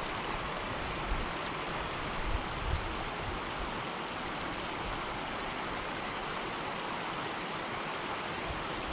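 Small creek flowing over rocks: a steady, even rush of water, with a few soft low bumps about one to three seconds in.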